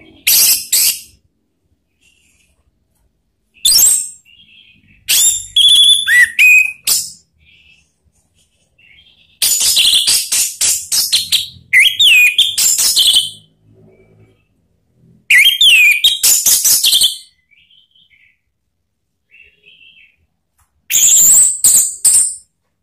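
Male orange-headed thrush singing in phrases of rapid, high whistled and squeaky notes with quick rising and falling glides. There are six phrases of under a second to about four seconds each, separated by pauses.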